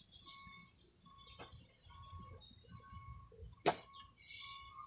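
Insects in a high, steady drone, with a short call repeating about once a second. A single sharp knock comes about three and a half seconds in.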